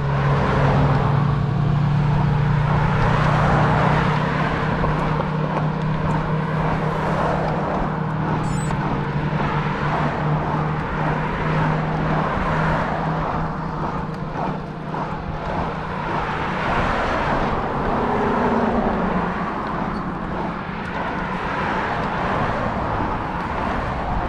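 Road traffic noise: a motor vehicle's engine drones steadily over rushing tyre and road noise, the engine hum fading about two-thirds of the way through.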